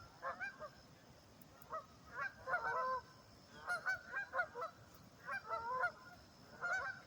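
A flock of geese honking back and forth, short calls coming in five quick bouts with brief pauses between.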